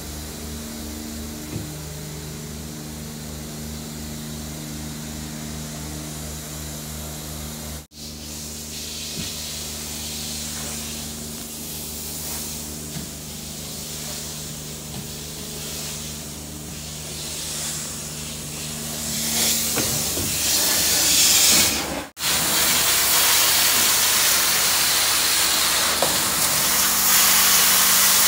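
Truck-mounted carpet-cleaning system running: a steady low drone with a throbbing pulse, turning near the end into the louder even hiss of the cleaning wand spraying water into the carpet and vacuuming it back up.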